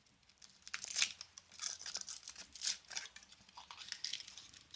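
Foil wrapper being peeled off a Kinder Surprise chocolate egg: irregular crinkling and crackling, starting about half a second in.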